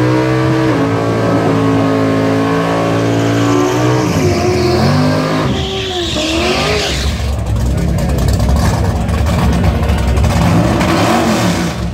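Supercharged Corvette ZR1 V8 held at high revs through a burnout with tyres spinning and squealing. About five seconds in the revs fall away with a hiss of tyre noise, and the engine settles to a low, uneven rumble as the car creeps forward.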